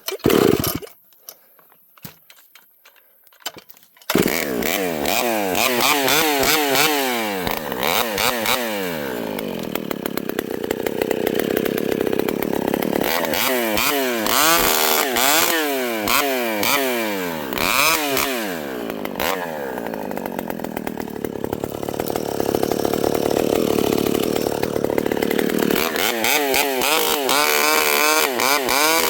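Vintage Pioneer chainsaw: after a thump and a few seconds of quiet, the saw starts running about four seconds in. It then revs up and down repeatedly, with stretches of steadier running between the revs.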